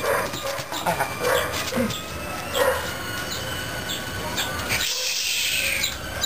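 Miniature pinscher puppy giving several short, high yips as it jumps for a treat, followed by a brief rustle near the end.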